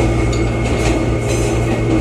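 Cabin running noise of an Oigawa Railway 21000 series electric train (ex-Nankai 'Zoom Car') moving at speed: a steady rumble with a constant hum of several held tones and faint rattles and clinks.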